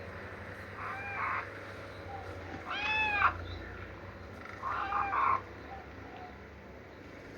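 Kitten mewing: three short calls about two seconds apart, each rising and then falling in pitch.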